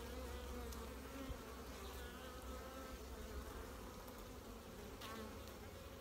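Steady buzzing hum of a mass of honey bees crawling and flying over a comb frame lifted out of the hive.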